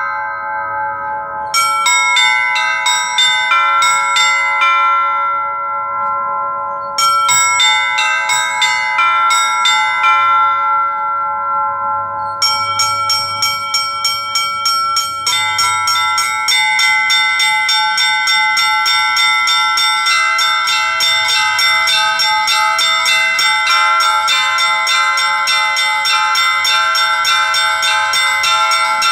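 Russian church bells rung by one bell ringer in the Ural style: quick patterns on the small high bells over the lingering hum of larger bells. The small bells stop a few times for a second or two while the bigger bells ring on. From about twelve seconds in they settle into a fast, unbroken peal, with more bells joining a few seconds later.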